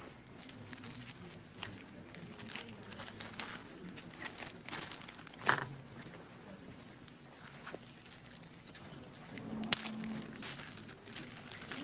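Quiet handling noise at a podium: paper rustling and light clicks, with a sharper knock about five and a half seconds in and another near the end, over a faint room hum.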